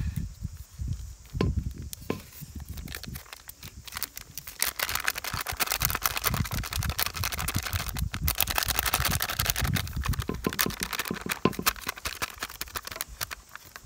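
Foil-lined flour packet crinkling and rustling in the hands as frying flour is shaken out of it into an aluminium bowl. The crinkling turns dense and continuous about a third of the way in.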